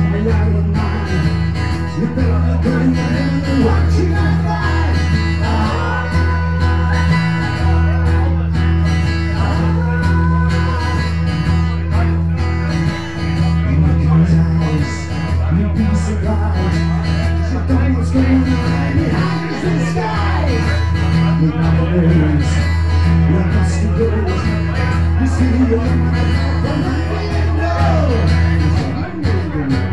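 Live acoustic duo playing amplified acoustic guitar music through a PA, with a steady strong bass line and a melodic line over it.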